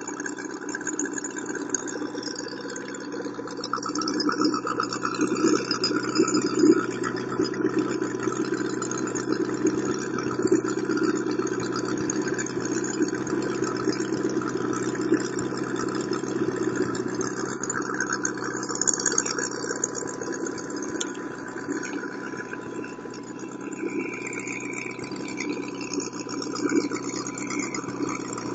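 O.S. FF-320 Pegasus four-cylinder model aircraft engine, fitted with twin CDI spark ignition and turning an 18x12 propeller, running steadily on its first tank of fuel during break-in.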